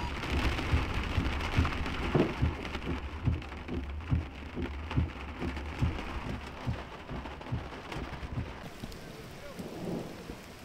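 Heavy rain pelting a truck's windshield and roof, heard from inside the cab over the low hum of the moving vehicle, with frequent irregular low thumps. Near the end the cab hum drops away and steady rainfall outdoors carries on, quieter.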